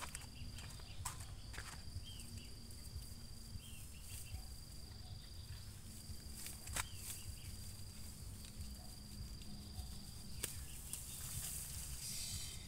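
An insect trills on one steady high note in long stretches with short breaks, over a low background rumble. A few sharp clicks sound, and near the end there is a brief rustle of leafy stems as weeds are pulled up by hand.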